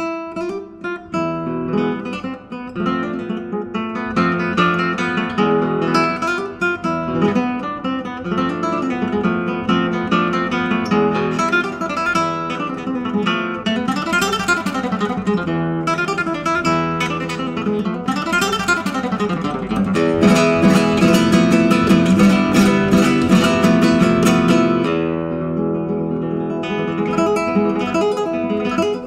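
Background music of acoustic guitar, fast plucked and strummed in a flamenco style. It starts abruptly and grows louder about two-thirds of the way in.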